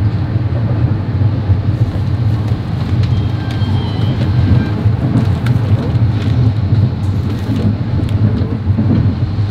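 Steady rumble of a moving passenger train heard from inside a sleeper compartment: wheels running on the rails and the carriage shaking, with no break.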